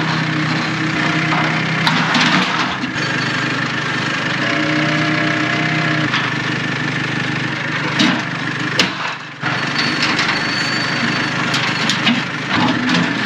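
Claas tractor's engine running while its front loader lifts and carries an old rusty steel trailer frame, with knocks and clanks from the frame in the grab, the sharpest about eight and nine seconds in.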